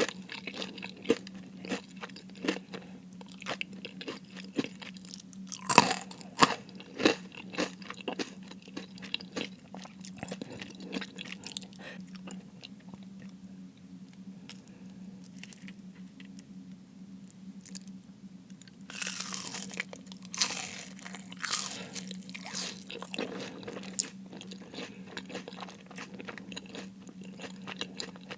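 Close-miked eating of crispy fried food: many sharp crunches as the coating breaks between the teeth, with chewing in between. The crunching goes quieter in the middle, then a louder, denser run of crunches comes about two-thirds of the way through, over a faint steady hum.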